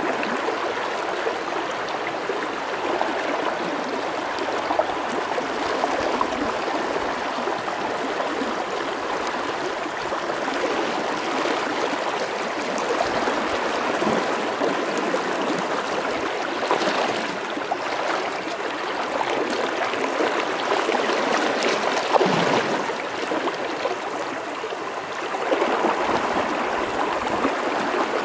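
River water rushing steadily over shallow rapids and riffles, a continuous even rush.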